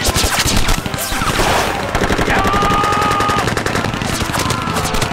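Rapid, unbroken machine-gun fire with other gunshots mixed in, a dense battle volley.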